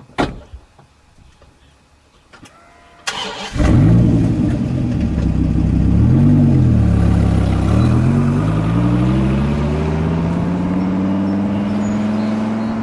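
Dodge Viper's V10 cranked by the starter and catching about three seconds in, after a sharp click. It runs loud with one quick rev blip, then climbs steadily in revs as the car pulls away.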